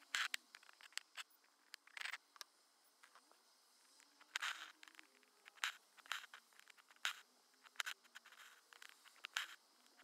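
Hand embroidery: a needle and thread being drawn through cloth held taut in an embroidery hoop. Short rasping swishes come every second or two as the thread is pulled through, with small clicks in between.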